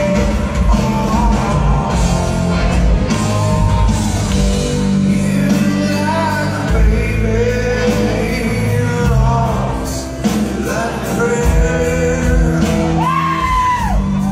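Live rock band playing electric guitars, bass and drums, with a male lead singer singing over them, heard from the audience in a large, echoing hall. Near the end the singer holds long, high notes.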